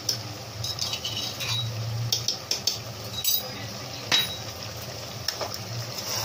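Metal slotted spoon scraping and clinking against the inside of a metal pressure cooker as meat masala is stirred, with a sharp clink about four seconds in.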